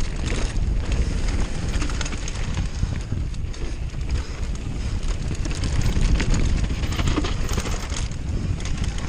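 Downhill mountain bike running fast down a dirt trail: steady wind rush on the microphone, with tyres on loose dirt and frequent short clicks and rattles from the bike over bumps.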